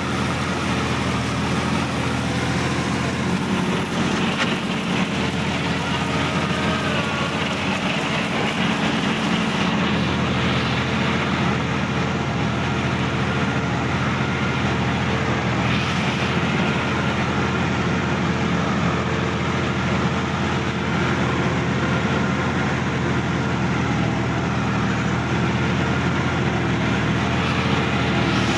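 Sonalika DI-50 RX tractor's diesel engine running steadily as the tractor drives across a field, heard from the driver's seat.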